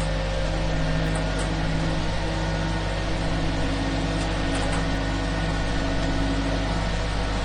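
Concrete mixer pouring concrete: a steady, unbroken engine drone under an even hissing wash, with a few faint ticks.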